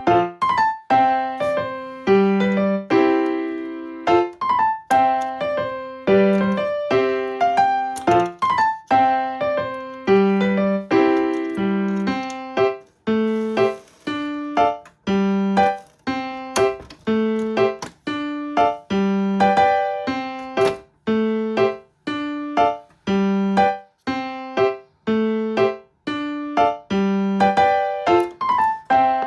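Background music: a piano or electric-piano tune with a steady, repeating pattern of notes.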